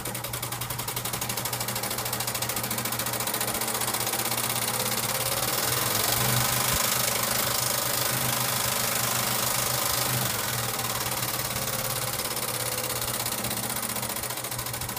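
Vintage Pfaff 130 sewing machine running under its belt-driven electric motor: a steady motor hum with the fast, even clatter of the needle mechanism. It grows louder toward the middle and eases off after about ten seconds.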